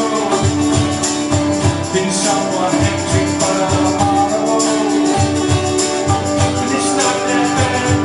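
Live band playing music with a steady beat and a long held note underneath.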